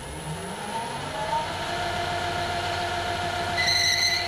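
Metal lathe starting up: the motor and drive rise in pitch over the first second or so, then run steadily with a whine. A short high squeal comes near the end.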